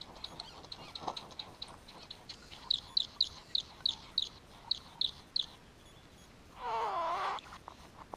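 Male great bowerbird's courtship display sounds: a run of sharp ticks, about three a second, growing louder in the middle. Near the end comes one harsh, rasping call of under a second with a wavering pitch.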